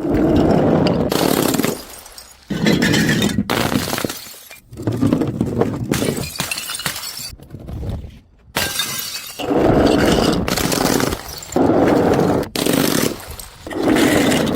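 Glass bottles smashing one after another, about a dozen crashes each lasting around a second, many cut off abruptly.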